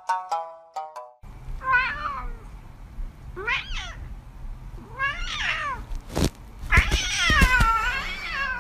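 A short tinkling melody ends about a second in; then a cat meows four times, the last meow long and drawn out, over low rumbling and a few bumps from handling of the phone.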